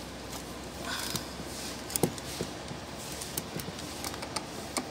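Small scattered clicks and taps of a metal scissors blade against a small glass glue bottle and a rubber mat as contact cement is scooped and dabbed on, the loudest click about two seconds in, over a low steady hum.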